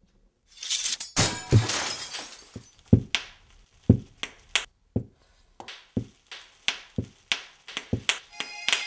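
Bubble wrap being crumpled and popped by hand. It starts with a dense crackle, then gives single sharp pops about one to two a second.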